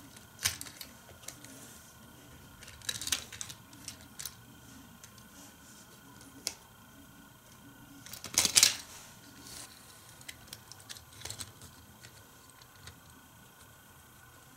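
Plastic parts of a Hot Wheels Power Lift Garage playset and a die-cast toy car clicking and clattering as they are handled, with a louder clatter about eight seconds in.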